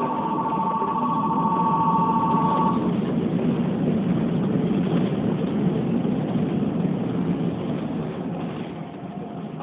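Running noise of a Keikyu New 1000 series train heard from the front of the car, a steady rumble. For the first three seconds a level-crossing warning bell rings as two pulsing tones, then stops.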